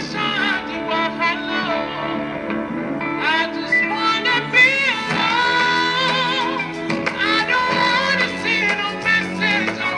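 A solo singer performing a song with vibrato on held notes, over steady instrumental backing.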